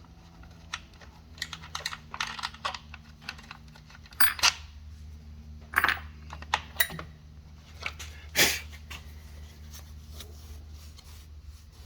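Scattered light clicks and knocks of small hard parts being handled and fitted by hand, over a low steady hum.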